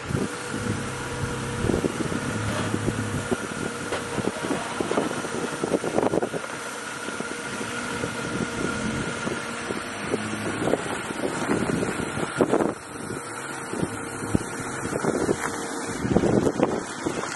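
Jeep Wrangler Rubicon engine running at low speed as the Jeep crawls over rocks and passes close by, with wind buffeting the microphone.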